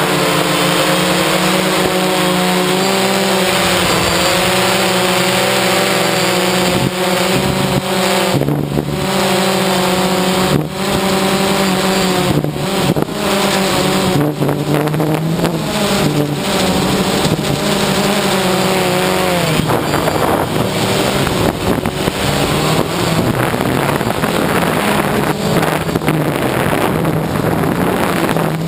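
DJI Phantom quadcopter's electric motors and propellers whining, heard from the camera mounted on the quad itself, several tones at once whose pitch shifts up and down as the throttle changes.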